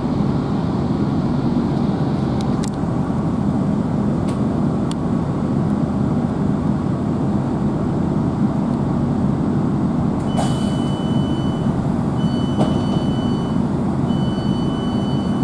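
GWR Class 165 diesel multiple unit's underfloor engine running steadily while the train stands at a platform, heard from inside the carriage. About ten seconds in, three long high beeps sound one after another, the door-closing warning.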